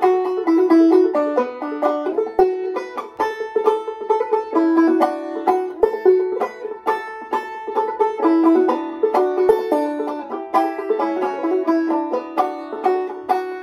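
Gold Tone five-string banjo played clawhammer style in aEAC#E tuning: a steady, quick run of plucked melody notes.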